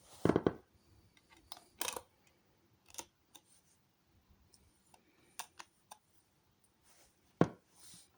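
Clicks, taps and short rustles of a CD case and its packaging being handled. There is a loud cluster of clicks just after the start, a few scattered clicks and taps after that, and a single sharp knock near the end.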